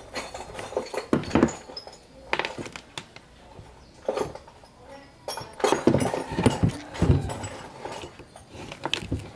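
A screwdriver prying and scraping at an old electric fan motor, with irregular metal clinks and knocks as a rusty metal disc is worked off the motor and set down on a wooden bench. The handling gets busiest a little past the middle.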